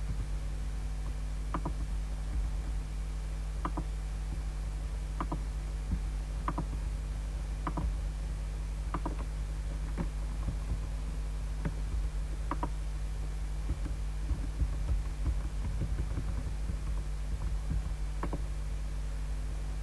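Steady electrical hum with a stack of low tones, and faint clicks of a computer mouse every second or two.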